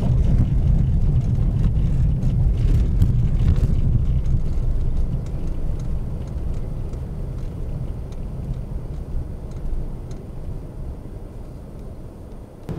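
Car interior road noise: a low rumble of engine and tyres rolling on packed snow, easing off over the second half as the car slows down.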